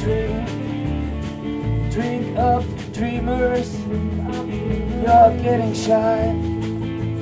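A live rock band playing: electric guitar, bass and drums with regular cymbal hits, and a woman singing into a microphone over them.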